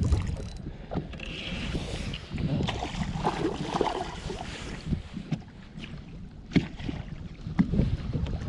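Water lapping and splashing around a small fishing boat, with wind on the microphone and a few scattered knocks.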